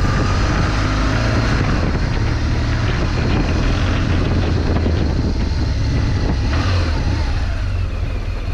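BMW R 1200 GS boxer-twin engine pulling under throttle up a steep dirt climb, a steady low engine note over a rush of wind and tyre noise, easing slightly near the end.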